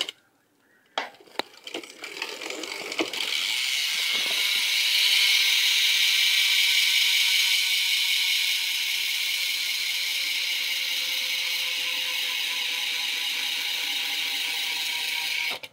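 Rear hub of a 2013 Subrosa Arum BMX bike freewheeling as the back wheel is spun. A few separate clicks give way to a steady, high-pitched ratcheting buzz as the pawl clicks run together, and it cuts off suddenly near the end.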